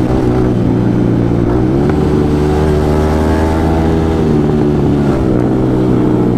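Motorcycle engine running, revved up about two seconds in, its pitch climbing and then dropping back about four seconds in before settling again.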